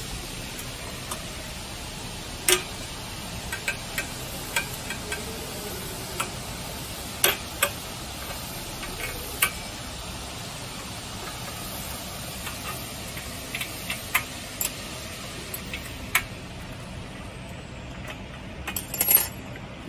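Sharp metal clicks and clinks of a hex key turning bolts in a steel base bracket, scattered and irregular over a steady hiss, with a short louder rattle near the end.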